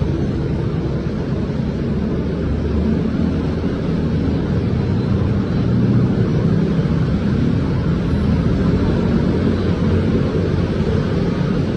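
Road traffic: a steady, unbroken rumble of vehicle engines, loudest in the low range, with no single standout event.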